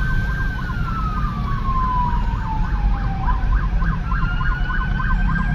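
Emergency vehicle sirens sounding together: a slow wail that rises and falls in pitch twice, over a fast yelp warbling about four times a second, with the low rumble of traffic beneath.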